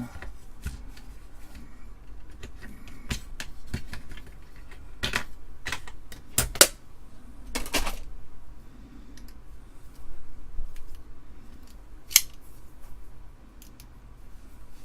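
Small clicks and rattles of hand tools being handled: a Torx bit set and screwdriver. A few sharper clacks come about six and a half, eight and twelve seconds in.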